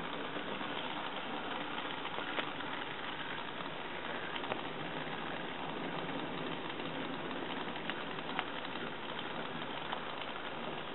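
Bachmann N class model steam locomotive, DCC-converted, running slowly along the track: a steady hiss with a few scattered sharp clicks.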